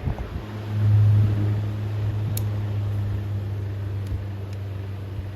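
Vintage Signal Cool Spot table fan running after being switched to low speed. A few clicks at the start, then the motor's low hum swells about a second in and settles into a steady drone with the rush of air.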